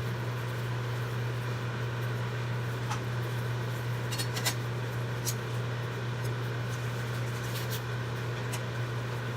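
A steady low mechanical hum, with a few faint clicks and taps in the middle from eating noodles with utensils.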